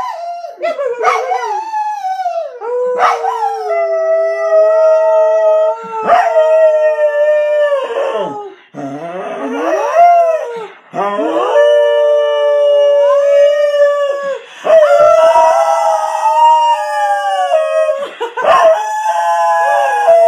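A corgi howling in long, drawn-out notes that slide up and down in pitch, together with a woman howling along with it. There are several held notes a few seconds each, with short breaks between them.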